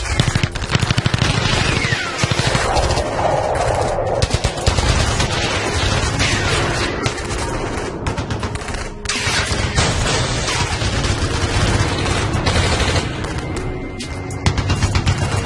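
Gunfire sound effects: rapid, continuous shots like machine-gun and rifle fire, with a few falling whines mixed in.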